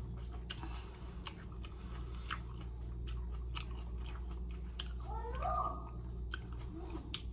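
A person chewing a mouthful of salad with many small crisp crunches and mouth clicks. There is a short hummed 'mm' about five seconds in, over a steady low hum.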